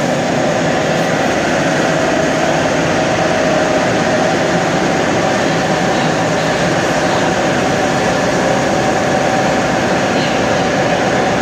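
Ezh3 (Em-508T) metro train standing at the platform with its doors open, its onboard auxiliary machinery running: a loud, steady hum with a faint whine held on one note.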